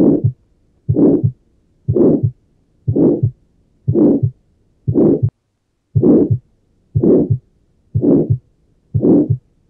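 Heart auscultated in tetralogy of Fallot: a crescendo-decrescendo systolic ejection murmur at the pulmonary area, produced by the obstructed right ventricular outflow, followed by a single second heart sound because pulmonary valve closure is inaudible. Regular beats, about one a second.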